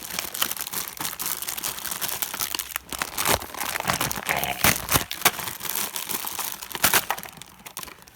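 Plastic blind-bag toy packaging being crinkled and torn open by hand: a steady run of crackling with several sharp snaps.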